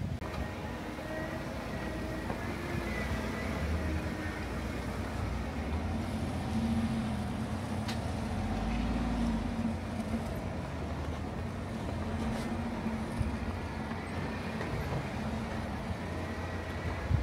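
Jeep engine running at low revs, a steady low rumble whose pitch drifts gently up and down, with a couple of faint clicks.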